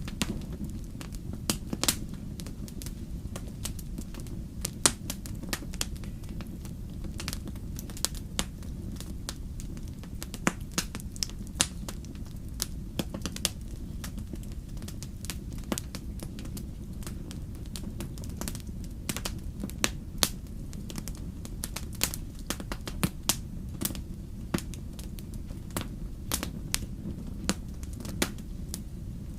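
Fire burning in a fireplace, crackling with irregular sharp pops, a few much louder than the rest, over a steady low rumble.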